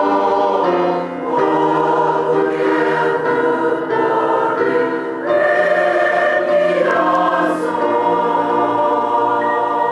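A church choir of girls and young women singing together in sustained chords, with short breaks between phrases about a second in and again around five seconds in.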